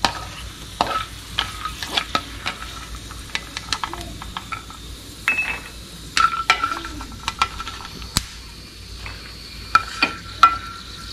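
Almonds frying crisp in hot ghee in a frying pan, sizzling faintly while a wooden spatula stirs and scoops them, with many sharp taps and scrapes of the spatula against the pan.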